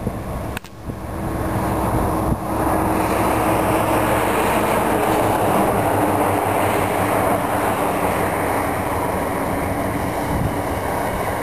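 Freight train hauled by blue locomotives running steadily past: a continuous rumble with a low steady hum, growing louder over the first two seconds or so and then holding.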